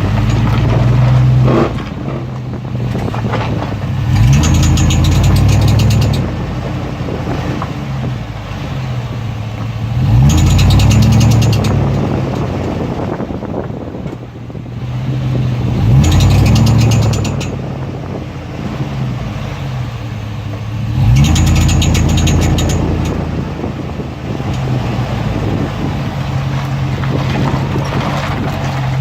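2003 Chevrolet Tahoe's V8 engine speeding up and settling back four times. A rapid, high chirping comes in each time the engine speeds up and stops as it drops back.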